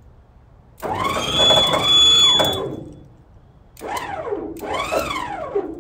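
Electric winch motor run in two short bursts, about one and four seconds in. Its whine swells up and falls away twice in each burst as it is switched on and off.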